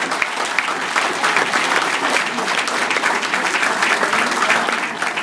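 A banquet audience applauding steadily, dense clapping with a few voices calling out, easing slightly near the end.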